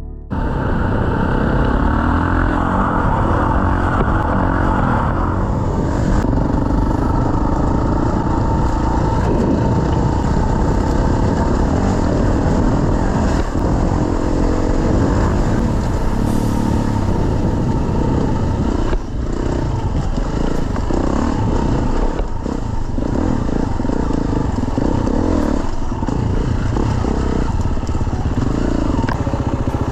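Dirt bike engine running under throttle as the bike is ridden, the revs rising and falling with a brief drop off the throttle about two-thirds of the way through.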